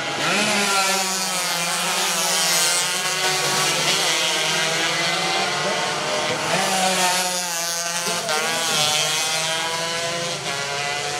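125cc two-stroke underbone race motorcycles running at high revs on a road circuit. Several engines overlap, each one's pitch rising and falling as the bikes go by.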